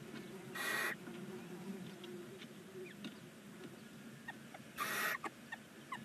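Barn owls in a nest box giving two short, breathy hissing calls about four seconds apart, with faint scratching and ticking from movement on the nest litter between them.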